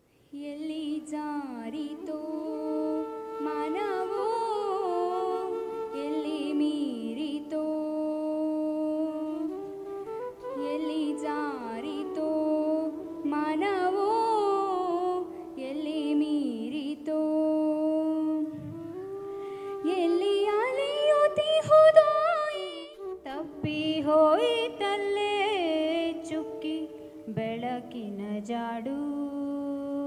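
A girl's solo voice singing into a handheld microphone: a slow melody of long held notes broken by quick ornamental turns.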